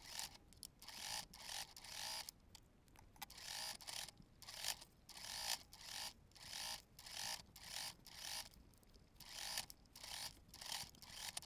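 Domestic sewing machine stitching bias-tape binding around a bag opening, heard as faint, thin stop-start runs, each well under a second, with short gaps between them.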